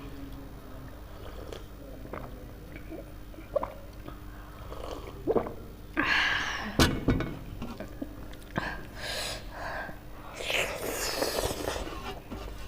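Close-miked eating sounds of spicy ramen noodles and chatpatey: small wet chewing clicks and smacks, with louder hissing breath or slurp bursts about halfway through and again near the end.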